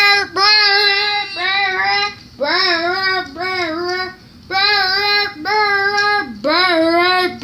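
A child singing a run of held notes in short phrases, each about a second long with brief breaks between them, without clear words.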